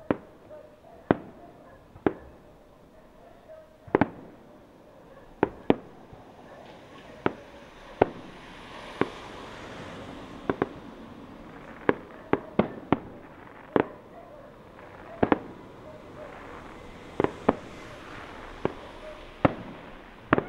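Fireworks display: aerial shells bursting in sharp bangs at uneven intervals, roughly one a second, each with a short fading tail. A hissing, crackling wash swells between the bangs about a third of the way in and again later on.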